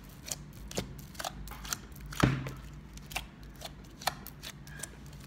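Fingers poking and pressing into a large batch of slime in a plastic tub, giving irregular small clicks and pops, with one louder pop a little over two seconds in.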